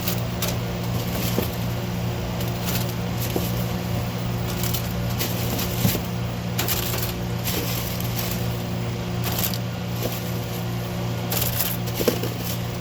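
Steady hum of commercial kitchen equipment, with scattered light clicks, taps and rustles as croissants are laid out on baking trays.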